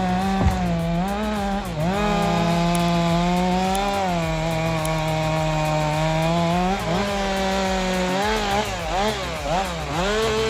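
Two-stroke chainsaw running at high revs and cutting wood, its pitch sagging briefly as the chain loads in the cut. Near the end it is revved up and down several times in quick succession.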